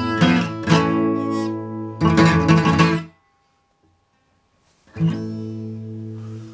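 Acoustic guitar strummed: a few quick chords, then a chord struck about two seconds in and left ringing, broken off by nearly two seconds of dead silence. Another chord is then struck and left to ring and fade.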